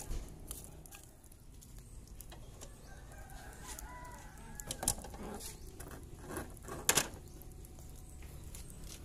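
Chickens clucking in the background, and two sharp metal clanks about two seconds apart as a wire grill grate is set down on a charcoal barbecue grill.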